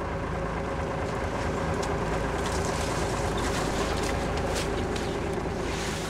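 Small fishing boat's engine running at a steady hum.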